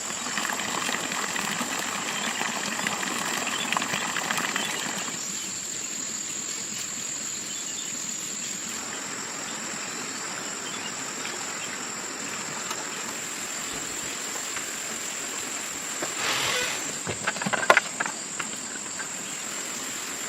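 Forest ambience of insects keeping up one steady, high-pitched drone. There is a short flurry of rustling and clicks about sixteen seconds in.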